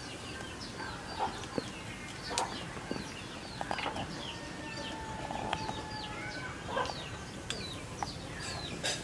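Chickens calling: a run of short, high peeping calls a few times a second, with a longer held call about halfway and a few sharp clicks scattered through.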